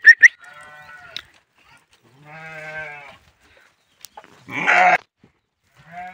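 Sheep bleating in a flock: three separate bleats, a faint one about half a second in, another about two seconds in, and a louder one near the end. A few short sharp sounds come right at the start.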